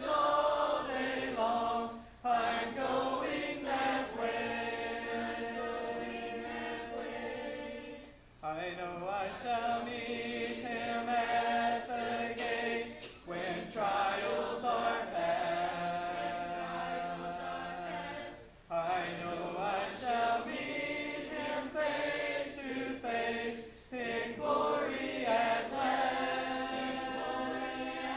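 A congregation singing a hymn a cappella, many voices together in long sustained phrases with a short breath-break about every five seconds.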